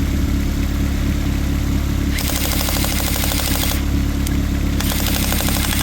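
Toyota engine idling steadily while a battery-powered fully automatic airsoft gun fires two rapid bursts of BBs into it, the first about two seconds in and lasting over a second, the second starting near the end.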